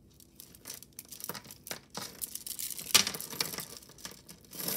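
Long strand of yellow plastic beads being pulled free from a tangled pile of metal jewelry: irregular clicking and rattling of beads against each other and against chains, busiest about three seconds in.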